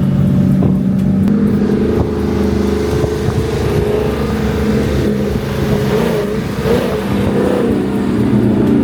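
Car engines running steadily on the road, a constant drone whose pitch wavers briefly about six seconds in.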